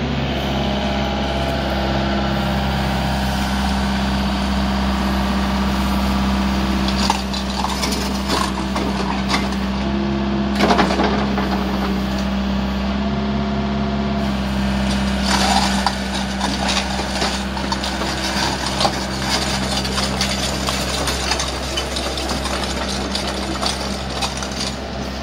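Hyundai R555-7K mini excavator's diesel engine running steadily, its note shifting a few times as the hydraulics raise the boom and bucket. Scattered metallic clicks and clanks come through in the middle stretch.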